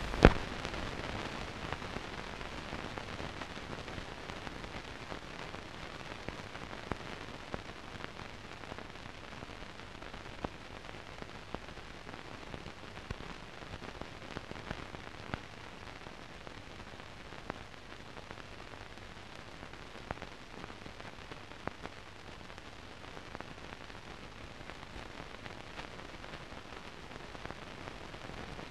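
Steady low hiss with scattered faint clicks and crackles: the surface noise of a soundless film transfer, with nothing recorded on the track.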